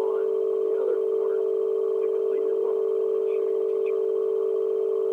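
A loud steady electronic tone held at one pitch, like a telephone dial tone, unbroken throughout.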